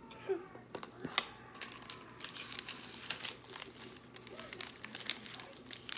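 Food packaging crinkling and rustling, with many irregular crackles.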